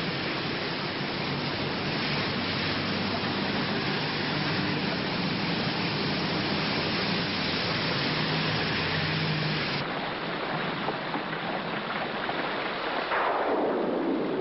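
Heavy rain pouring down on a wet street, a steady loud hiss, with a low vehicle-engine hum under it. About ten seconds in the hum drops away while the rain goes on, and a louder rush swells up near the end.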